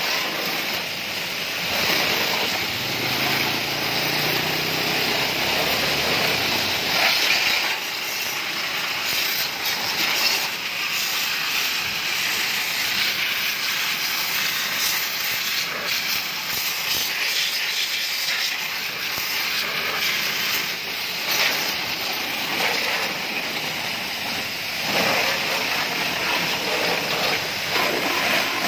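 Water spraying from a hose nozzle onto a motorcycle, rinsing it off: a steady hiss of spray that swells and dips as the jet moves over the bodywork and engine.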